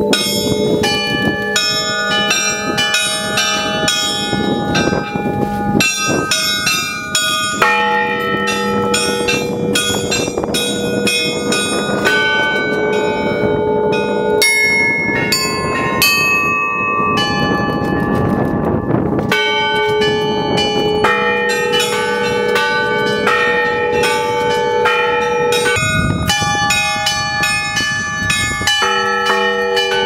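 Russian Orthodox church bells rung by hand from ropes in a belfry: a dense, rhythmic peal of many quick strikes on small, high bells over the sustained ringing of lower bells.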